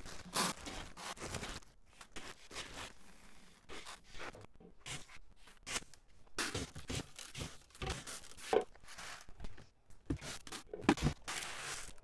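Plastic buckets and lids being moved about and rummaged through: irregular rustling and scraping with a few sharper knocks.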